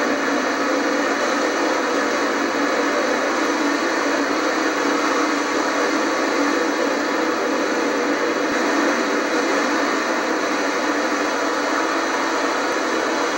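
Loud, steady rushing roar of hurricane wind, heard from inside a flooding house.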